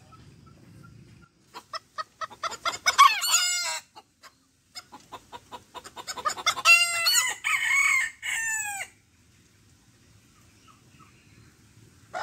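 Bantam roosters crowing twice. Each time a run of short, quick clucking notes leads into the long crow.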